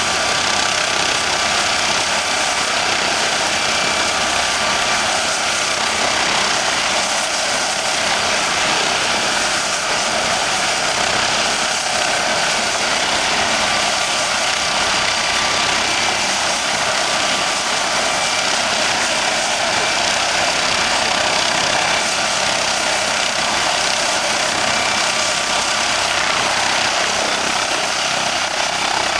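MD Explorer police helicopter's turbine engines and rotor running on the ground: a steady whine over a constant rush of noise. The high whine rises near the end as the engines power up for lift-off.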